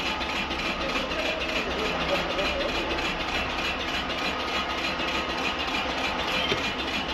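Large CNC wood lathe running steadily as it turns a log about 900 mm across: a continuous machine hum under an even cutting hiss.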